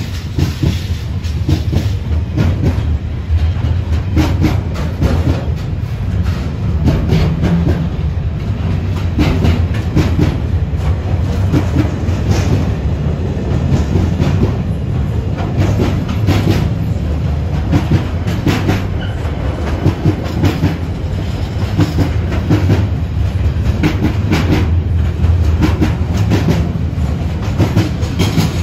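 Train running past at close range: a steady heavy rumble with wheels clicking over rail joints the whole way through.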